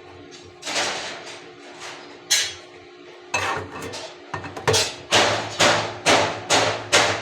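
A series of sharp strikes or strokes of a hand tool on metal. A few come spaced apart, then about two a second in a steady run through the second half, over faint steady background music.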